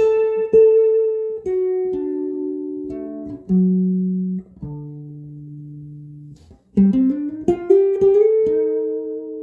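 Electric guitar through Seymour Duncan Zephyr humbucker pickups playing a slow single-note line. The notes step down to a long-held low note, there is a brief pause, then a quick run climbs back up.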